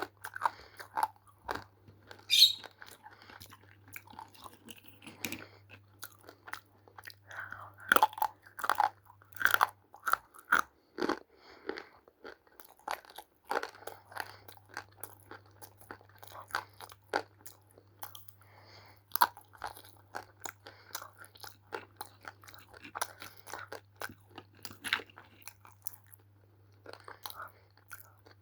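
A person biting and chewing roasted multani mitti (fuller's earth clay): irregular sharp crunches, over a faint steady hum that drops out for a few seconds midway.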